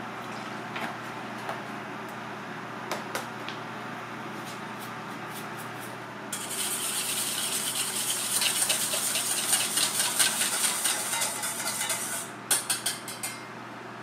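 Wire whisk beating oil in a stainless steel bowl: a fast, scraping metal-on-metal rattle that starts about six seconds in and runs for about six seconds, followed by a few sharp clicks. Before it, only a few soft clicks over a steady low hum.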